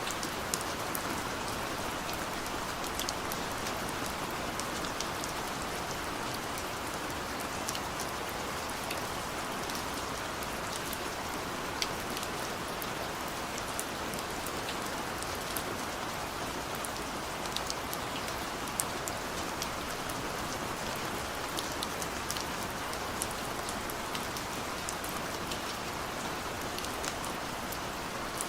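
Steady rain falling, a constant hiss with many individual drops ticking sharply on a surface.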